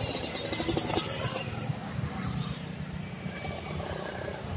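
Steady road traffic noise, a mix of passing cars and motorcycles, with a few light clicks in the first second.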